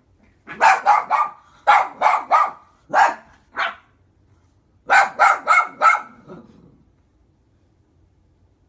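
Shih tzu barking in quick runs of three or four barks, with single barks in between, stopping about seven seconds in.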